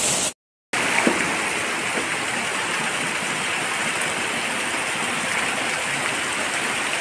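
Heavy monsoon rain and runoff splashing steadily onto shallow floodwater, an even hiss of water. The sound cuts out completely for a moment just under a second in.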